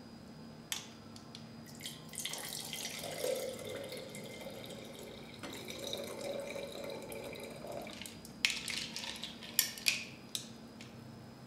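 Clericot (red wine punch with ice and frozen berries) poured from a glass carafe into a wine glass, splashing steadily for about six seconds. Near the end come a few sharp clinks of the metal bar spoon and ice against the glass.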